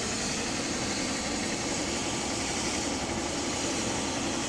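Steady mechanical drone with a high hiss, even in level throughout.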